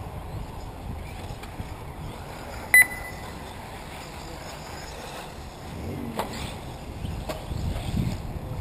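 Wind on the microphone over the distant running of 1/8-scale electric off-road buggies, with a faint rising motor whine about six seconds in. A single short, high electronic beep sounds about three seconds in.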